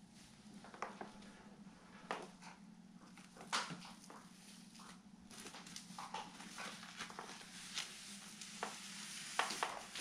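A small dog moving about on pet pads and plastic sheeting: irregular crinkles, rustles and claw clicks, a few sharper than the rest.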